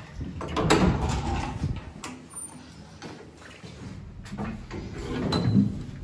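Hinged metal lift landing door pulled open by its knob and swinging shut again, with metallic clunks and latch clicks; the loudest clatter comes about a second in and another near the end.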